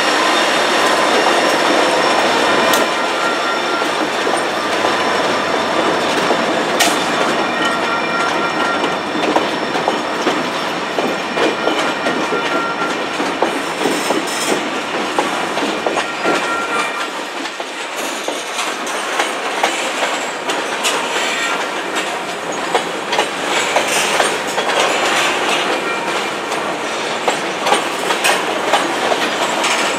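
Freight train passing close by: the trailing diesel locomotives, the last a former Santa Fe GP35, run past, then covered hopper cars follow with a steady clickety-clack of wheels over the rail joints. The low engine sound drops away about 17 seconds in, leaving the wheel and car noise.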